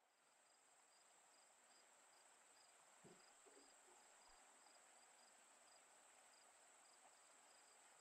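Near silence: a faint steady high-pitched hiss and whine with a faint, regularly repeating chirp, and one soft tap about three seconds in.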